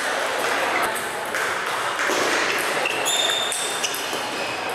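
Table tennis balls clicking and pinging off tables and bats at several tables across a large hall, over a steady hubbub of voices.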